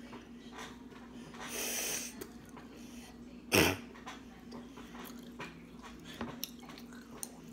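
A child eating: breathing and a hissing breath about one and a half seconds in, small mouth clicks from chewing, and one short, loud burst about three and a half seconds in, over a steady low hum.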